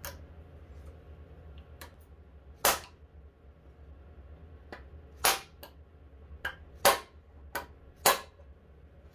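A hand-held mechanic's driver working a screw on a lathe headstock, giving about ten sharp metallic clicks at uneven intervals, four of them much louder than the rest.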